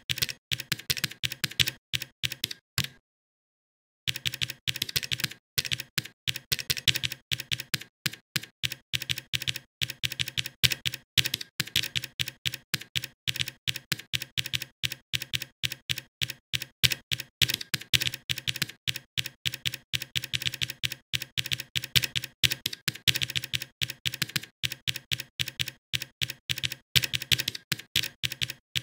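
Computer keyboard typing: a rapid, continuous run of keystrokes, broken by a gap of about a second roughly three seconds in.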